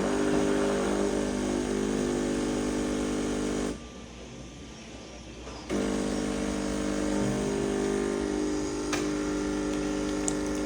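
Coffee machine's water pump running with a steady buzzing hum as it brews and pours coffee, stopping for about two seconds midway and then starting again; the machine is working again after its blocked internal valve was cleaned.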